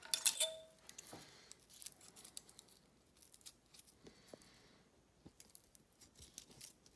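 Steel feeler gauge blades clicking and clinking as they are handled and slid between the camshaft lobe and lifter to check valve lash on a BMW M52 head, with a brief ringing metal clink about a quarter second in, then scattered light ticks.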